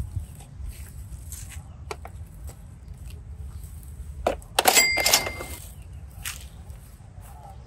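Hard plastic Orbeez containers handled and rustled, with a loud plastic clatter about five seconds in as they go into a plastic basket; a brief high ringing tone sounds inside the clatter.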